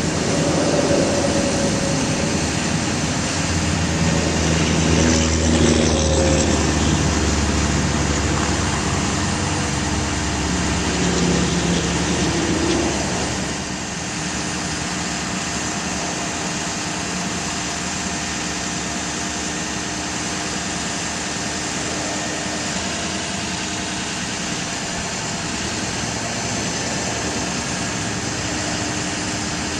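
2006 Ford F550 bucket truck's engine running and powering the hydraulics of its ETI aerial boom as the boom moves. It is louder, with shifting pitched tones, until about halfway through, then settles to a steadier, slightly quieter drone.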